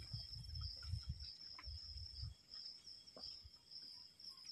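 Crickets trilling steadily in a high, unbroken band. Low thuds in the first two seconds or so, then only the crickets and a few faint clicks.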